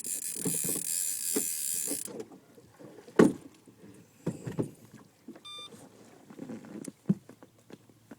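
A small fishing boat's motor gives a high whine that cuts off about two seconds in. Then come knocks and thumps of gear in the boat, the loudest about a second later, and a brief beep.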